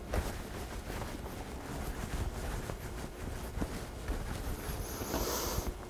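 Hands rolling bread dough into a long rope on a wooden counter: soft rubbing with a few light taps over a low steady rumble, and a brief higher hiss near the end.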